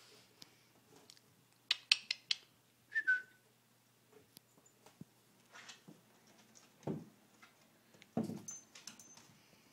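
Miniature Schnauzer puppy playing: a cluster of sharp clicks and knocks, one short high squeak about three seconds in, and a couple of short low sounds near the end.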